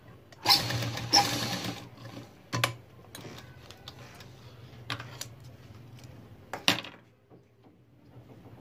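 Uppal domestic sewing machine stitching in one short run of about a second and a half, starting about half a second in. A few separate sharp clicks follow as the fabric is handled.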